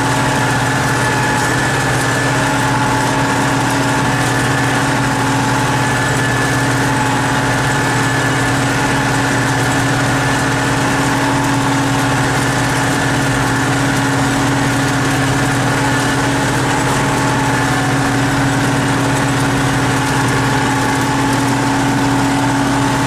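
KhTZ T-150K tractor's diesel engine running steadily under way, heard from inside the cab: a constant drone with a steady high whine over it.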